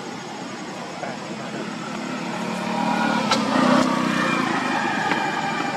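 A motor vehicle's engine passing by, growing louder to a peak a little past halfway and then easing off.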